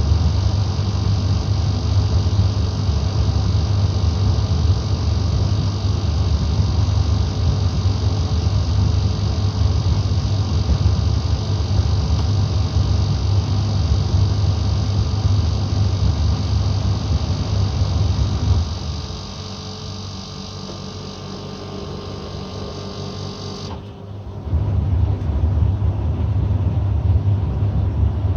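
Gorenje D85F65T tumble dryer running with a loud, steady low hum, which the owner finds abnormal in a new machine. About two-thirds of the way through, the hum drops away. A few seconds later a high hiss cuts off and a loud low rumble starts again.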